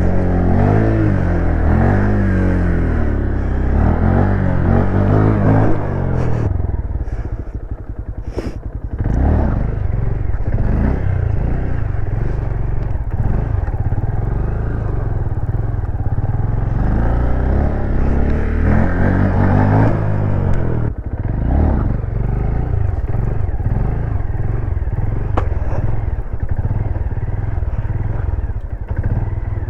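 Honda Grom's single-cylinder 125 cc engine revving up and down as the bike is ridden through stunt tricks. The revs drop low about a quarter of the way in, with a sharp click, then climb again.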